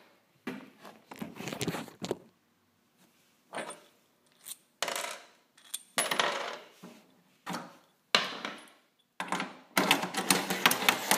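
Metal bolts and washers clinking and rattling as they are handled and slid into a metal rail, in a string of separate short clinks that turn into a denser clatter near the end.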